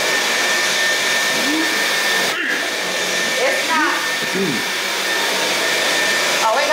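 Dyson V12 cordless stick vacuum running on boost over a carpet runner: a steady rush of airflow with a thin high motor whine, dipping briefly about two and a half seconds in and again near the end.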